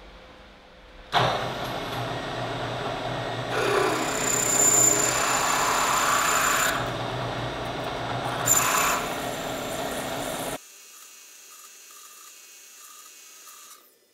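Milling machine drilling into a metal block: a dense grinding cutting noise over the spindle motor's low hum, strongest in the middle. It starts suddenly about a second in and cuts off abruptly about ten seconds in, leaving only a faint hum.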